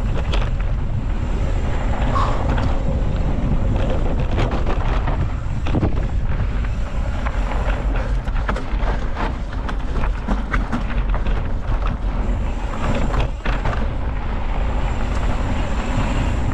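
Mountain bike riding a dirt singletrack at speed, with wind rumbling on the action camera's microphone and frequent clicks and knocks as the bike rattles over the trail.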